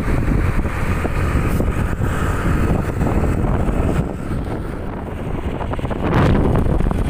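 Wind rushing over the microphone of a moving motorcycle, with the bike's engine running underneath. The wind gets louder about six seconds in.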